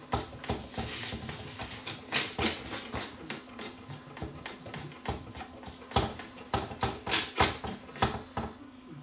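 Dual 1225 turntable's changer mechanism worked by hand: the plastic cam gear and steel levers clicking and rattling irregularly as the gear is turned to spread fresh grease in its groove. A steady low hum runs underneath.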